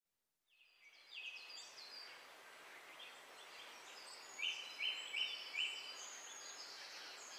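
Birds chirping over a steady hiss-like ambience, fading in about half a second in: short rising chirps repeated in quick runs, with a clear run of four past the middle.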